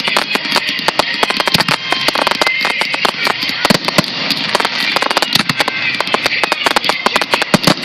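Aerial fireworks in a finale barrage: shells bursting and crackling in quick succession, several bangs a second overlapping with no break.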